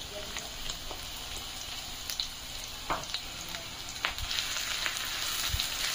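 Chopped onion sizzling in hot oil in a kadhai, a steady hiss that grows slightly louder toward the end. A few sharp clicks and scrapes come through as a spatula stirs the onion.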